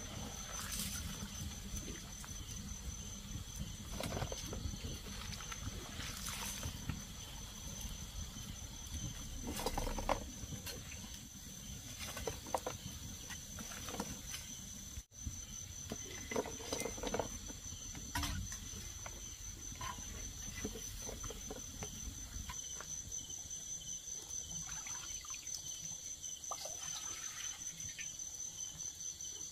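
A steady, high insect chirring with a fine pulse runs under a low background hiss, and scattered light clicks and knocks come through over it.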